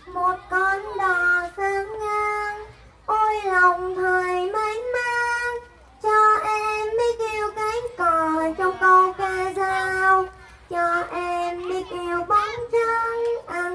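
A child singing unaccompanied, a high voice holding notes in short phrases with brief pauses between them.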